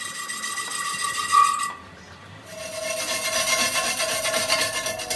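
Lathe cutting tool turning the rim of a spinning aluminium alloy wheel, the cut giving a steady high whine over a scraping hiss. About two seconds in it goes briefly quieter, then resumes as a noisier scraping hiss with a lower steady whine.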